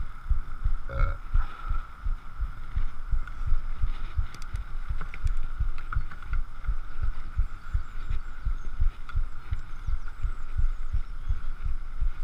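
Downhill mountain bike rolling along a gravel track, heard through a chest-mounted action camera: rapid low thuds and rumble from the ride, several a second, over a steady mid-pitched hum.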